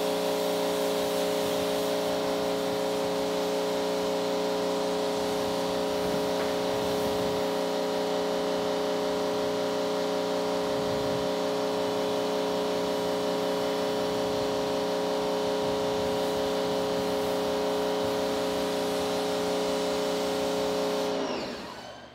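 Pressure washer running, its pump motor humming a steady tone under the hiss of the water jet. About a second before the end the motor shuts off and winds down, its pitch falling away.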